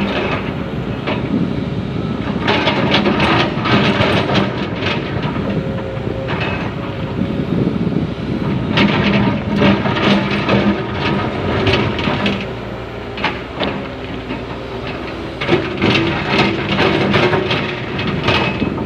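Komatsu excavator running with its diesel engine under load, with repeated metallic clanks and scraping as the steel bucket scrapes rock.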